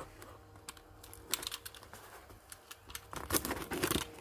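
Box being cut open with a utility knife: scattered sharp clicks and scrapes of the blade working through packing tape and cardboard, with denser scraping and rustling near the end.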